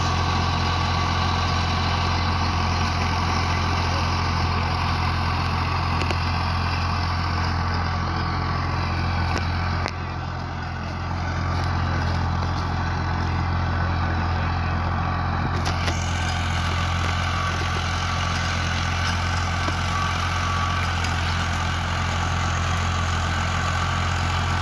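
Farm tractor's diesel engine running steadily while pulling a rear-mounted tillage implement across ploughed soil. Its level dips briefly about ten seconds in.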